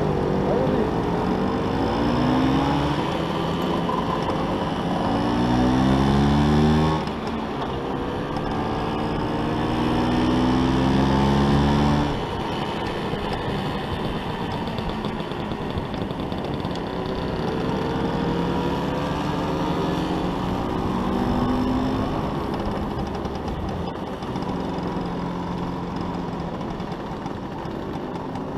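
Vespa scooter's two-stroke engine heard from the saddle while riding, its pitch climbing through the gears in the first few seconds, holding high, then easing off about twelve seconds in to a lower steady run before picking up again later.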